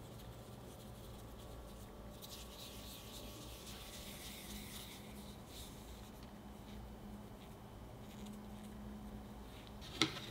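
Floured hands pinching and rubbing soft glutinous rice cake dough closed around its filling and rolling it smooth: a faint soft rustling that swells about two seconds in, over a low steady hum. A sharp click near the end.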